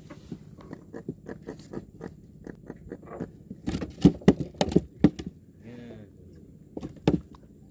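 Irregular clicks, taps and scrapes of things being handled, with a run of louder knocks about four to five seconds in and another near the end.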